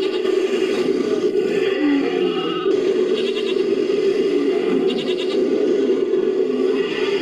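A made-up creature's call built from layered animal recordings, with a bleating, goat-like quality. It is one continuous, dense vocal sound with a fast quaver about 3 and 5 seconds in.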